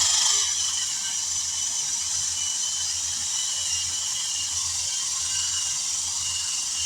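Compressed air hissing steadily from an air tool or air line during a tire patch repair, starting abruptly and holding level, with a faint steady whistle in it.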